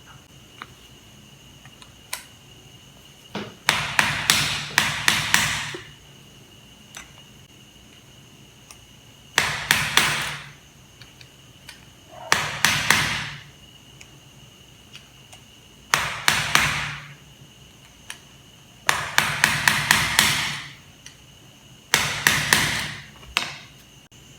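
Hammer tapping a flat screwdriver held against a bottom bracket's sealed cartridge bearing to drive it out of its cup: six bursts of quick, ringing metal strikes, a few blows each, with pauses of a couple of seconds between them.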